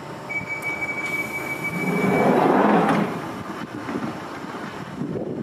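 Door closing on a London Underground 1996 Stock train: a steady high warning tone sounds for about two seconds, then the doors slide shut with a loud rush of noise.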